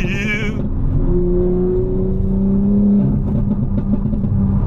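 Tuned BMW M4's twin-turbo S58 inline-six running under way, a steady drone that slowly rises in pitch for a couple of seconds and then settles.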